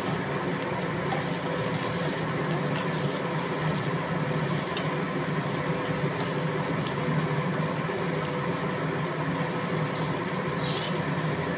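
Semolina kakra pitha deep-frying in hot oil in a steel wok: a steady sizzling and bubbling of the oil, with a few light clicks as a slotted metal spoon works in the wok.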